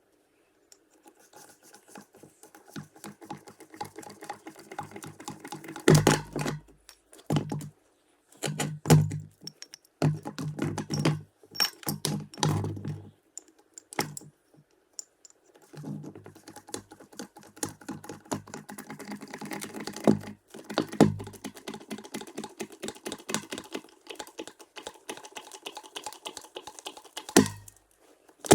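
Bottle jack at work pushing out a crushed corrugated metal culvert: rapid clicking, with louder knocks and pops at irregular intervals as the bent metal gives.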